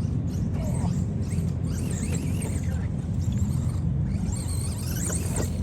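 Radio-controlled truck running, its electric motor whining and gliding up and down in pitch as the throttle changes, over a steady low drone.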